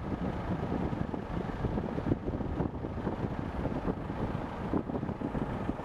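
Wind buffeting an outdoor microphone: an uneven low rumble with no clear tone.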